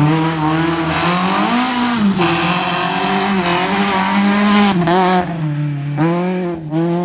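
Rally car engine at high revs on a stage, its pitch climbing and dropping several times as the driver shifts and lifts, with a short sharp burst of revs about five seconds in.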